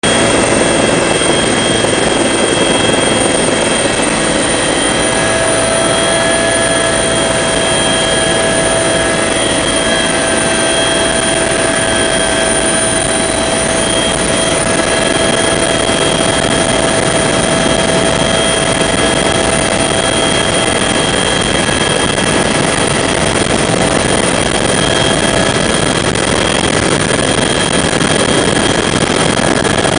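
Bell 412 helicopter heard from inside the cockpit in flight: the twin-turbine engines and rotor drive running loud and steady, with several steady high whining tones over the noise.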